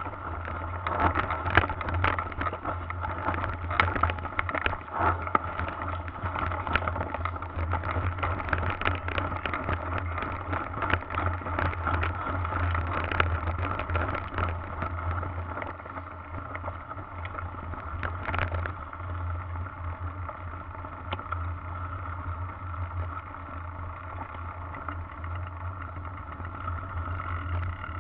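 Mountain bike ridden over a rough dirt trail, heard through an action camera mounted on the bike: a steady low rumble of wind and rolling noise with frequent rattles and knocks from bumps. The knocks come thickly in the first half and thin out later.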